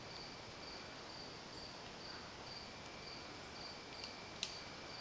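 Insects chirping in an even rhythm of about two chirps a second, with a faint steady high tone beneath; two sharp clicks a little after four seconds in, the second the loudest.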